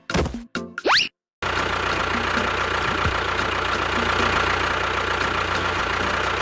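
Music and a rising cartoon-style sound effect in the first second, cut off by a brief silence. Then a small engine or motor runs steadily with a constant high whine over a low hum.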